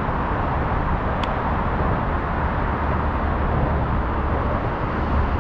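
Steady traffic rumble and road noise from the nearby elevated highway and streets, with one brief faint click about a second in.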